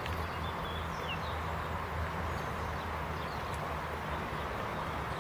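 Steady rain falling through tree foliage, over a low steady rumble, with a few short bird chirps about a second in and again midway.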